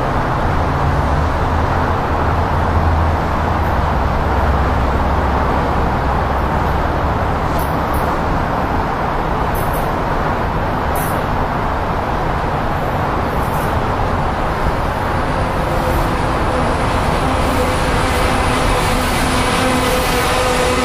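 NJ Transit electric locomotive approaching and drawing into the station, a steady rumble of rail noise throughout, with a steady electric whine coming in over the last several seconds as it nears.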